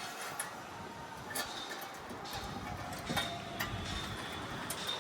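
Irregular metal clinks and knocks from hand tools and hardware while an AC outdoor unit's wall stand is fastened with anchor fasteners: about five separate sharp strikes.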